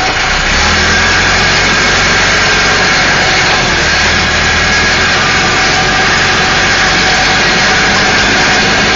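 Caterpillar 416C backhoe's Perkins turbo diesel engine running steadily, with a steady high whine over the engine note.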